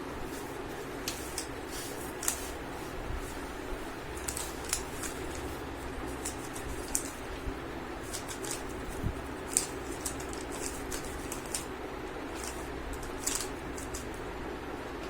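3×3 Rubik's cube being turned by hand during a solve: irregular plastic clicks and clacks of the layers, over a steady background hum.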